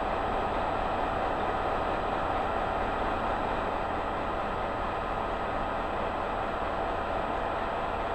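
Electric locomotive running as it approaches slowly, a steady hum with no sudden knocks or horn.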